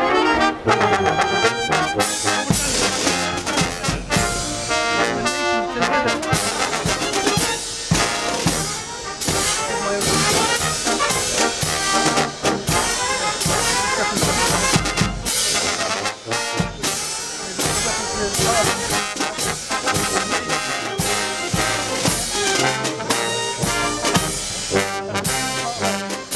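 Military band playing: brass instruments carry the tune while side drums and a bass drum keep the beat.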